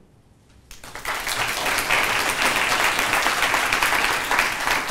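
An audience applauding, the clapping starting about a second in after a short hush and holding steady.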